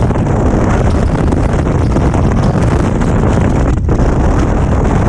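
Loud, steady wind rushing over the microphone of a fishing boat running at speed across choppy water, with the motor and water noise underneath.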